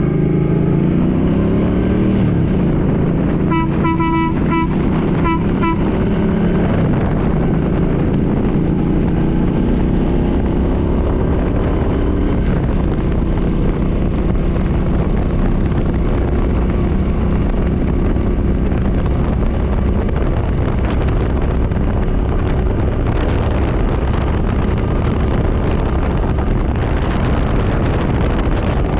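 Suzuki Boulevard C50 motorcycle engine running while under way, its pitch rising and falling. About four seconds in comes a quick run of short blasts from its newly fitted Farbin air horn.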